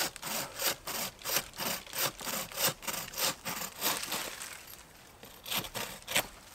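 Hand saw cutting through a tree branch overhead, rasping back and forth about three strokes a second, then pausing briefly before two last strokes near the end.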